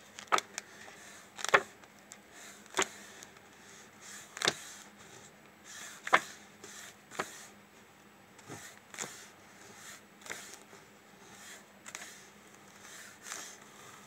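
Pages of a textbook being turned one after another: a short, crisp flick of paper about every second or so, some louder than others.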